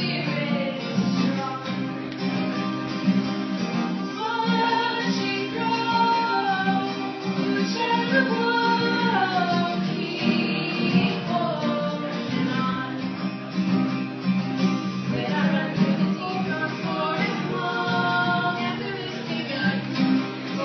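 Live female singing over strummed acoustic guitar.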